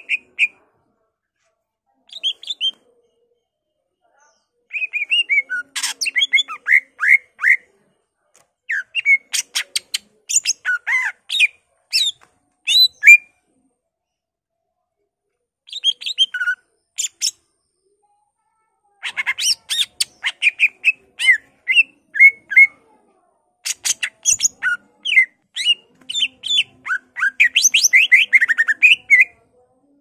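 Male greater green leafbird (cucak ijo) singing loudly in quick bursts of varied chirps, trills and whistles. There are six phrases, separated by pauses of one to two seconds, and the longest and densest comes near the end.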